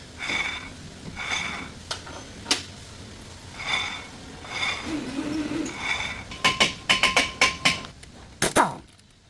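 Nissan front brakes giving short scraping squeals with a high ringing tone, about five times at uneven intervals: the brake noise the repair sets out to cure. A quick run of sharp clicks follows about two-thirds of the way in, then a falling sweep near the end.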